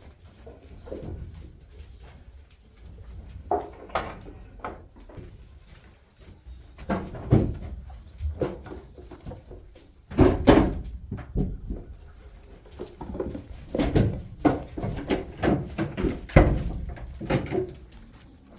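Irregular knocks, bangs and clatters, like doors or gates being handled, with the strongest thuds about 7, 10½, 14 and 16½ seconds in.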